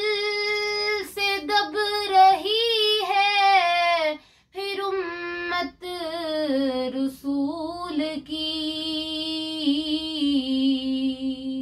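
A girl singing an Urdu naat unaccompanied, drawing the words out in long ornamented phrases with short breath pauses. It ends on a long, steady held note.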